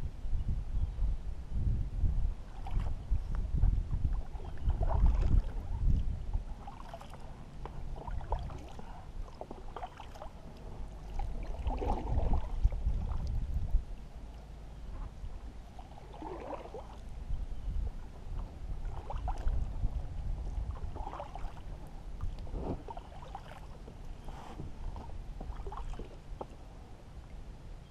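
A small boat being paddled through a marsh creek: repeated paddle strokes and water swishing, with low thumps and rumbling that are heaviest in the first several seconds.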